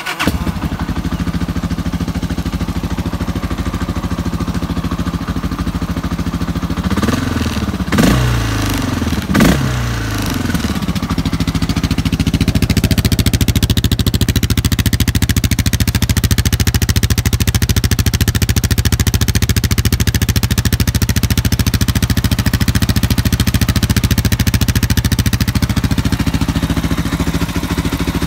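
Motorcycle engine catching on the electric starter and settling into a steady idle, with the throttle blipped three times about seven to ten seconds in.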